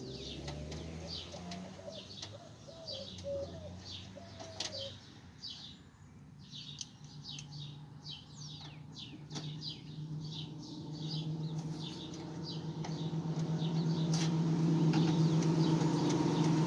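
Birds chirping repeatedly outdoors, with a vehicle engine coming in about ten seconds in and growing steadily louder toward the end.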